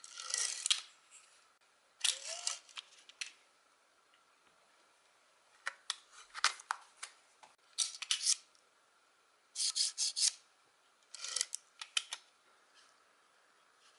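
Six short clusters of small clicks and scraping, about every two seconds: staple strips being worked out of their cardboard box and pressed into the open magazine of a Max HD-50F stapler.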